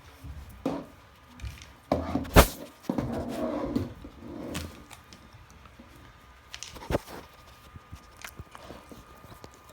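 Hovawart puppies moving about, with scattered knocks, a sharp loud knock about two and a half seconds in, and a short stretch of rough puppy noise right after it.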